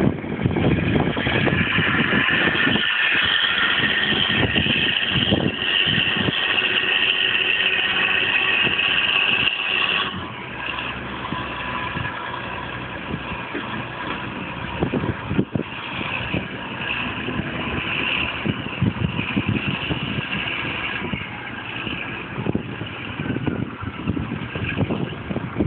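Renault 370 tipper truck's diesel engine running at raised revs with a high whine over it while the trailer body is tipped to dump its load. About ten seconds in the revs drop and it settles to a lower, steadier running.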